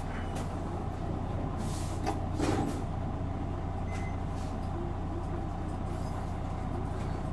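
Isuzu Erga city bus's inline-six diesel engine idling steadily, heard from inside the cabin, with a short hiss of air about two and a half seconds in.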